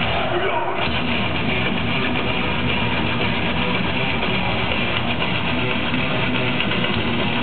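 Live heavy metal band playing loud: distorted electric guitars, electric bass and drums.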